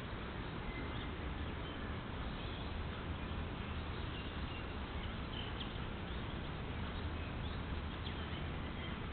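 Steady hiss and low hum from a trail camera's microphone, with faint, short bird chirps scattered through it.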